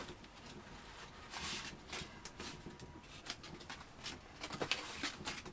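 Soft, irregular taps and rustles of hands patting millet dough flat on a leaf, the leaves crackling as they are touched.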